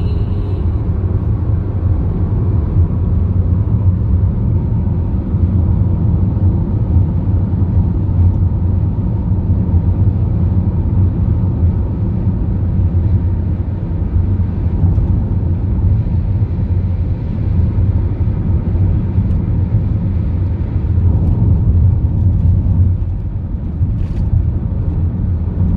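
Steady low rumble of a car on the move: road and engine noise at cruising speed.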